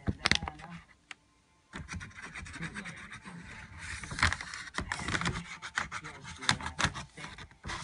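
Large brown paper bag crinkling and rustling in irregular sharp crackles as a cat shifts about inside it, with a short quiet gap about a second in.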